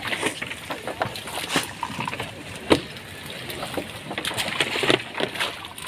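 Water splashing and sloshing in irregular bursts beside a small boat as people move and handle it in the water, with a single sharp smack a little before the middle.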